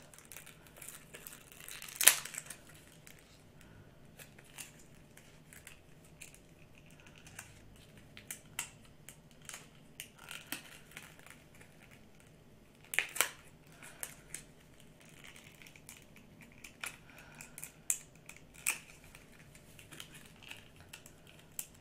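Small folded card hang tag on a plush doll being picked and pried open by hand: faint crinkling and scattered light clicks, with a sharper snap about two seconds in and another around thirteen seconds. The tag is stuck shut and hard to open.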